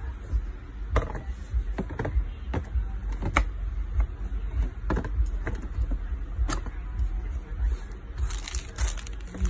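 Hands handling a hard plastic microphone carrying case: scattered clicks and knocks as it is lifted and opened, over a steady low rumble. About eight seconds in comes a short rustle of plastic as a wrapped packet inside the case is touched.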